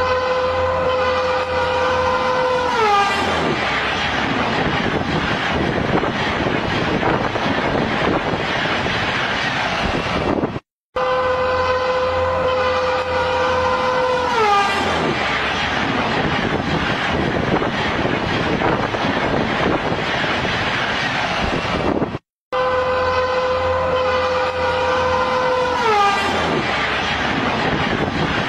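Freight train's horn blowing one steady note, then sliding down in pitch as the locomotive passes, followed by the loud rush of the train going by. The sequence repeats three times, with a brief dropout before the second and third.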